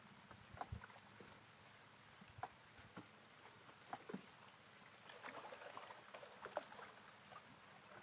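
Near silence with faint water lapping and small knocks against a small boat's hull, scattered light ticks, busiest about five to six and a half seconds in.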